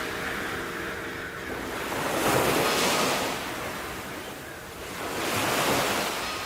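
Sea waves washing onto the shore, the surf swelling and falling back twice about three seconds apart.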